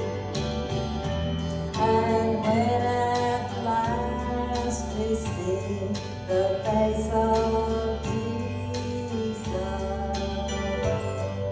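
A woman singing a gospel song into a microphone, over instrumental accompaniment with a steady bass line.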